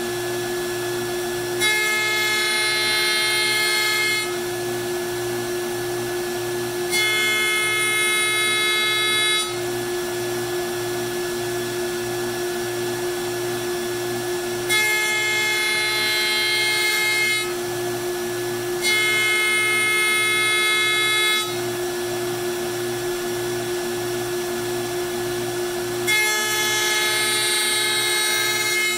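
CNC router spindle running with a constant whine while it is jogged slowly back and forth to shave tenon tabs off a black walnut leg. Five times, for about two and a half seconds each, a louder multi-toned whine with cutting hiss comes in as the bit passes through the wood.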